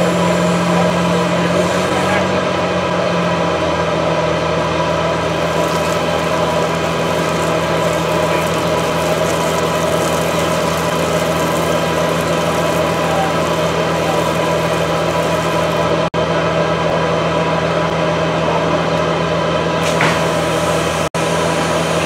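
A heavy truck's diesel engine running steadily, a constant low drone with a hum above it.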